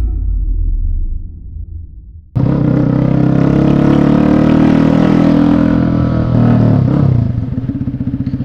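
Yamaha Fazer 250 single-cylinder motorcycle with a loud exhaust, cutting in suddenly a little over two seconds in after a fading low rumble, running hard and loud, then dropping to a lower, evenly pulsing beat near the end.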